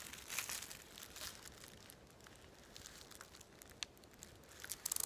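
Faint crinkling and rustling of brown paper, with scattered small clicks as the wires and battery pack are handled. A quick run of clicks comes right at the end.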